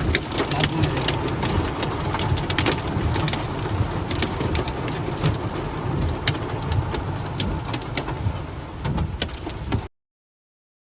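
Hailstones pelting down, a dense clatter of many sharp irregular ticks over a steady rushing noise, ending abruptly about ten seconds in.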